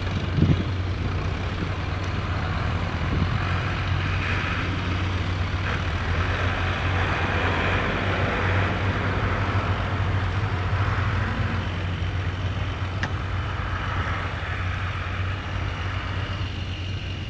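Tractor engines running, a steady low hum with rougher engine noise over it that eases off near the end.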